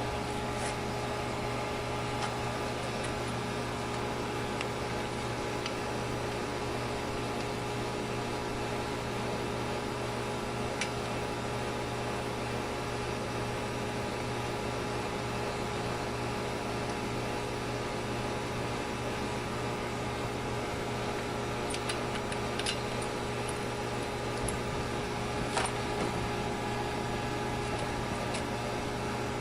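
A steady mechanical hum made up of several unchanging tones, with a few faint clicks late on.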